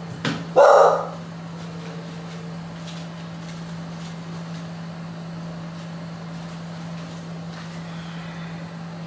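A sharp knock, then one short, loud bark-like cry just under a second in, followed by a steady low hum for the rest.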